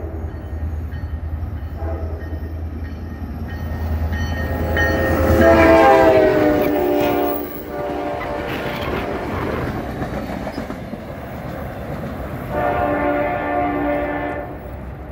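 NJ Transit GP40PH-2 diesel locomotive passing with its engine running, then sounding its horn loudly about five seconds in, the pitch dropping as it goes by. The coaches roll past, and the horn sounds again, more faintly, near the end.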